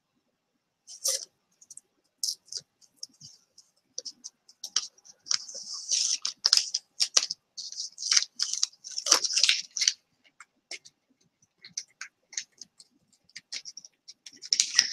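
Laser-cut pieces being handled on a tabletop: light clicks and scrapes, with a denser stretch of scraping in the middle.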